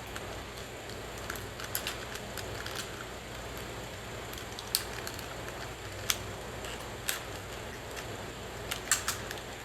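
Sharp plastic clicks and light scraping as a small screwdriver pries the retaining clips of a BMW master window switch out of its trim bezel; a handful of separate clicks, the loudest pair near the end, over a steady low hum.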